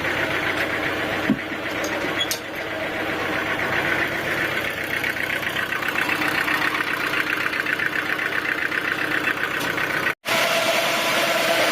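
A sawmill's engine running steadily with an even, rapid firing rhythm, cut off abruptly for a fraction of a second about ten seconds in.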